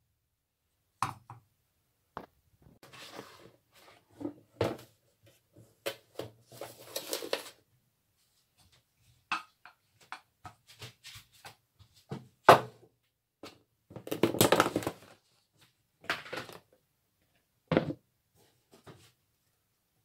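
Kitchen handling sounds: scattered knocks, clinks and short scrapes of a wooden spoon working cooked rice in a metal pot and of a plastic tub being handled. The loudest is a sharp knock a little past the middle.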